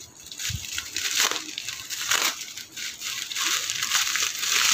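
Bubble wrap and plastic packaging crinkling in the hands as a small parcel is unwrapped, in irregular bursts.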